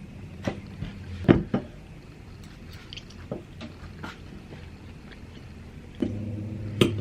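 A person eating close to the microphone: chewing and biting with scattered sharp mouth clicks and smacks, the loudest about a second in. A low steady hum comes in near the end.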